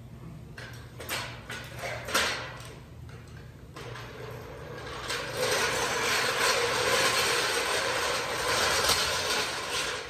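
Welding arc: a few short bursts, like tack welds, then a steady crackling run of about five seconds that stops abruptly near the end, over a low shop hum.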